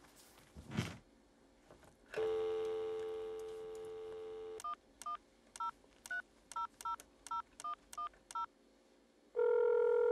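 Touch-tone desk telephone: the dial tone comes on as the handset is lifted, about ten quick key tones follow as a number is punched in, and the first ring of the ringback tone starts near the end. A brief rustle comes before the dial tone.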